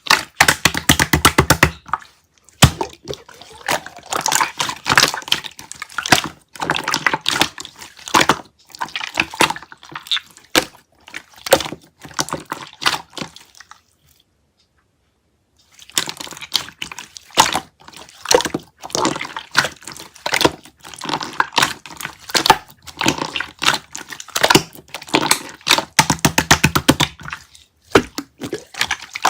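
Slime being squished and pressed by hand, making dense crackling and popping clicks. It stops for about two seconds midway, then resumes.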